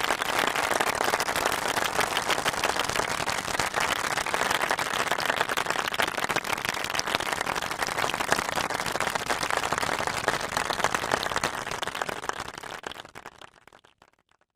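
Audience applause: many people clapping steadily, then dying away over the last couple of seconds.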